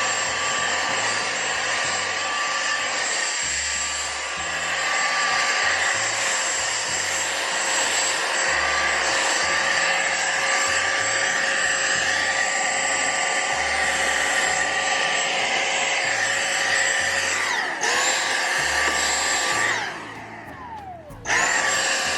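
Vacuum cleaner running with a steady high motor whine. Near the end it is switched off and on twice: the whine falls as the motor spins down and rises as it starts again.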